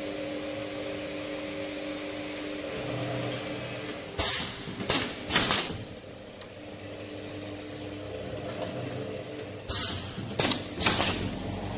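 Automatic cup filling and sealing machine running with a steady mechanical hum. Twice, about five and a half seconds apart, it gives a quick group of three loud, short hisses with each working stroke of the filling and sealing stations.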